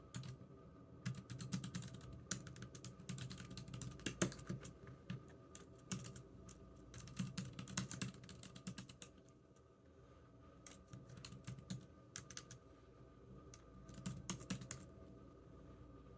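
Typing on a computer keyboard: quick runs of key clicks in bursts, with a short pause about two-thirds of the way through.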